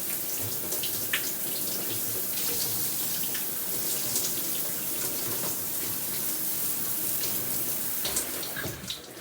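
Water running in a bathroom as a steady splashing hiss, with scattered small splashes and knocks; it fades away near the end.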